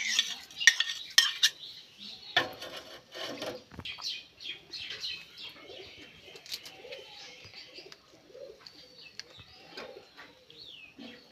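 A steel spoon clinks and scrapes against a ceramic plate and a small metal pan as noodles are pushed off the plate and stirred in the water. The sharpest clinks come in the first second and a half, with softer scrapes after. Birds chirp faintly in the background.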